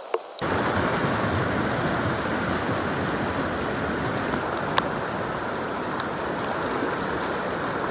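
A fast, rocky jungle river rushing close by: a loud, steady rush of water that cuts in suddenly about half a second in. One sharp click about five seconds in.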